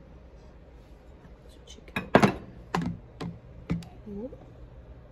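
A spoon knocking and scraping against a saucepan as diced vegetables are stirred: a quick cluster of clicks and knocks about two seconds in, then a few single knocks. A short rising squeak-like sound near the end.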